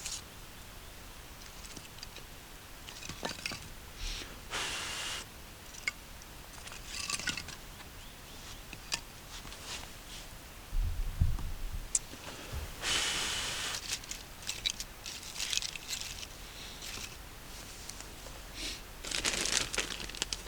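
Intermittent rustling and scraping in short bursts, with a few sharp clicks and a low thump about eleven seconds in.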